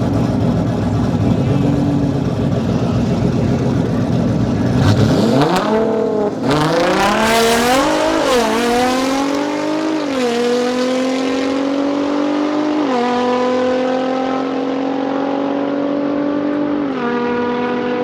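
Drag car's engine rumbling low at the start line, then launching about five seconds in and accelerating hard down the strip. Its pitch climbs and drops back at each of about five gear changes.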